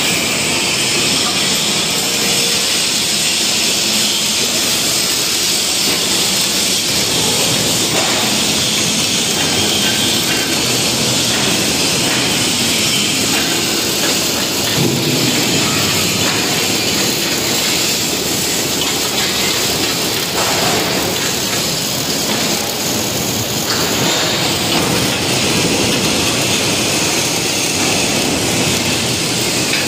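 Arc welding on a steel compactor body: a steady, loud crackling hiss that runs on without a break, over general factory noise.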